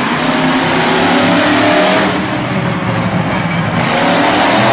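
Monster truck engine revving hard under acceleration, loud and dense. The sound changes abruptly about two seconds in.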